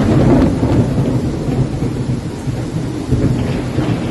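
Heavy monsoon downpour, a dense steady rush of rain under a low rumble of thunder that swells at the start and again about three seconds in.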